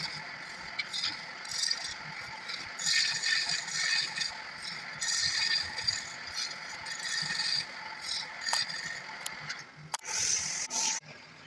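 Wood lathe running while a turning tool scrapes and cuts the spinning wood, the cutting noise swelling and easing in irregular strokes. A sharp click comes near the end.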